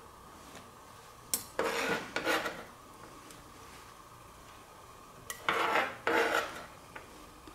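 Knife blade scraping chopped red onion across a cutting board, in two rounds of short rasping strokes. Each round starts with a light tap: the first about a second and a half in, the second near the end.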